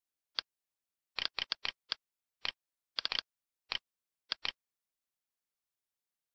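Computer mouse clicking: about a dozen short, sharp clicks, some single and some in quick bunches of two to four, with dead silence between them; the clicks stop a little after four and a half seconds in.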